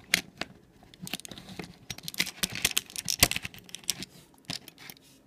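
Irregular small clicks and rattles of a USB device being handled and plugged into a port on a USB 3.0 hub, thickest in the middle.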